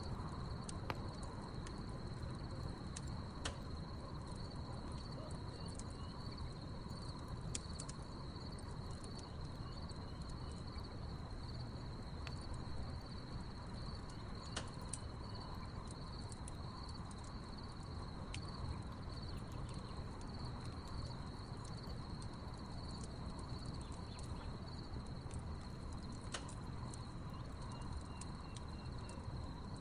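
Wood fire crackling with scattered sharp pops over a low rushing hiss, against a steady chorus of crickets chirping.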